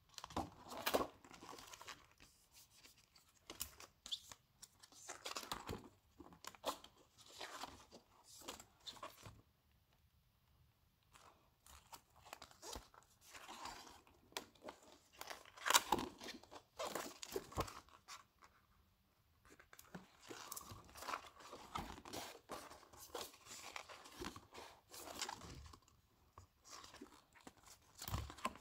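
Paper pages of a spiral-bound desk calendar being flipped and handled by hand, rustling in irregular bursts with a couple of short pauses.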